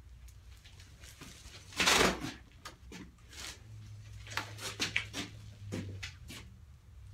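A sport motorcycle pushed forward by hand and stopped hard on the front brake, its front fork compressing: a loud, short scuffing thud about two seconds in, then a run of lighter knocks and clicks. The forks are being pumped to force old oil and dirt out past a leaking fork seal that has just been cleaned with a Seal Mate.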